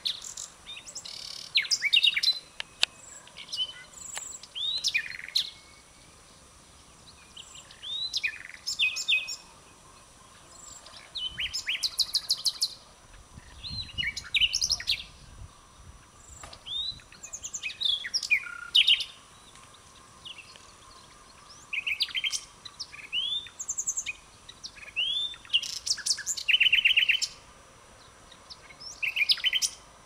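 Common nightingale singing: short, varied phrases of a second or two, with rising whistles and fast rattling runs of repeated notes, each phrase followed by a brief pause.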